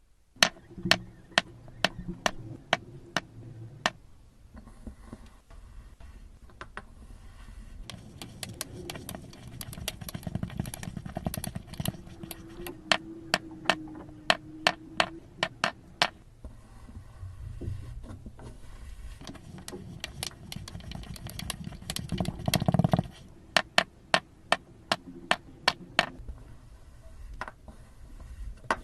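Slime being worked by hand, giving many sharp pops and clicks at irregular intervals, often several a second, over a soft squishing.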